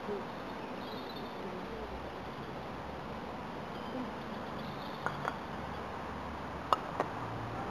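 A croquet mallet strikes the ball with a single sharp knock, followed about a third of a second later by a second, softer knock. Two faint clicks come just over a second before the stroke, over a steady outdoor background hiss.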